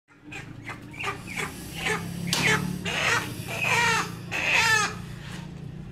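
Broiler chicken squawking loudly in a run of harsh calls as it is grabbed and pulled out of a metal cage. The calls grow louder and longer, with the biggest ones in the second half. A steady low hum runs underneath.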